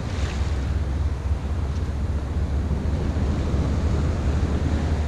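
Wind buffeting the microphone as a steady low rumble, over the wash of sea surf breaking on the rocks of a breakwater.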